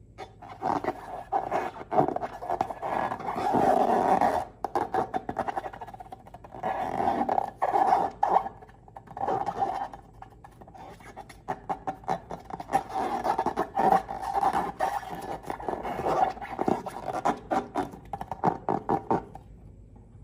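Slime being squished, stretched and mixed by hand, with irregular sticky crackling and squelching and a few short pauses.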